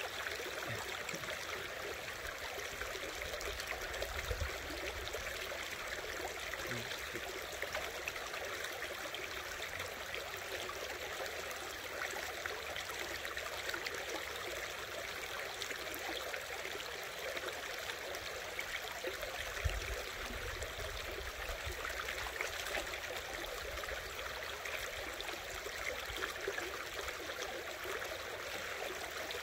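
Creek water running steadily over rocks, a continuous rushing haze, with a couple of soft low bumps, about four seconds in and again near twenty seconds.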